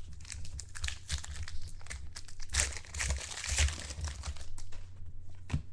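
A trading card pack wrapper crinkling and tearing as it is opened and handled, with dense crackling that is thickest in the middle.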